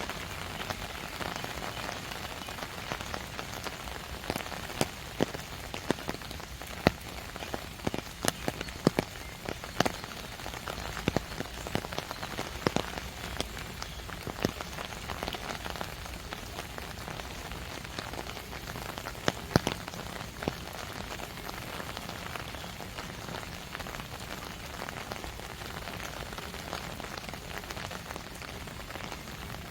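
Steady rain falling, with many sharp ticks of close drops hitting, thickest from about four to twenty seconds in.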